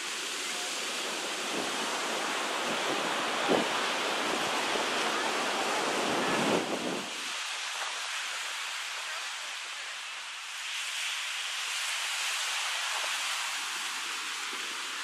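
Small waves breaking and washing up a sandy beach, a steady hiss of surf. Wind rumbles on the microphone through the first half, with a couple of brief buffets, then eases about halfway through.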